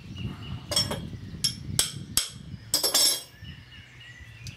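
Sharp metallic clinks and knocks, about six in the first three seconds, then quieter handling, as a stuck T2 Terminator muzzle brake is worked loose from a rifle's threaded muzzle.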